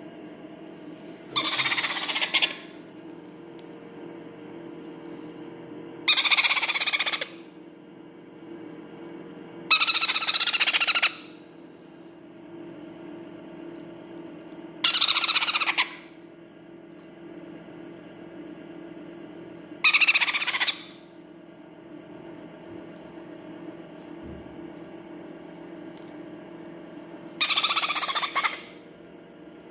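A parrot chick giving harsh begging calls while being hand-fed: six loud cries about a second long each, coming every four to seven seconds. A steady low hum runs underneath.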